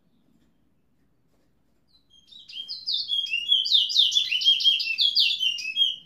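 A towa towa bird, a songbird, whistling a fast song of short notes sliding up and down, several a second. The song starts about two seconds in and builds quickly to full strength.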